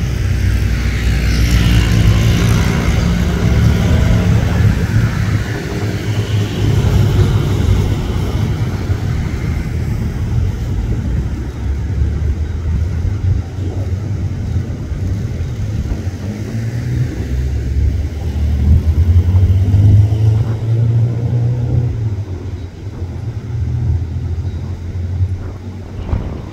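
Loud, low engine rumble whose pitch rises and falls a few times, heaviest in the first few seconds and again around eighteen to twenty seconds in, easing off near the end.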